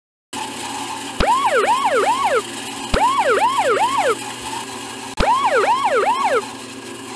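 Edited-in siren-like alarm sound effect: three quick whoops that rise and fall in pitch, played three times, each group starting with a click, over a steady background noise.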